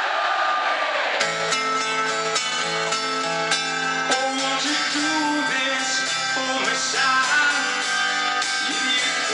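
Live rock band in an arena hall. For about the first second the crowd is singing along; then strummed guitar chords come in, with a male voice singing over them.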